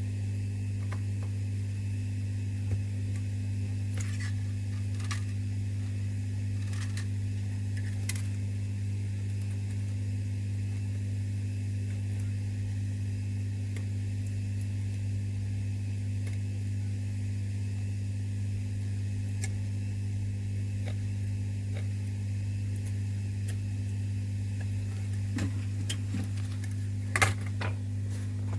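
A steady low electrical hum throughout, with scattered small clicks and scrapes from a tool picking broken glass bits off the phone frame, the sharpest click near the end.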